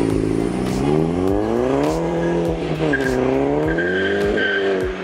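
Turbocharged VW Golf Mk5 four-cylinder TFSI engine accelerating hard, its pitch climbing through the revs and dropping sharply at gear changes about halfway and near the end. Sharp cracks come here and there.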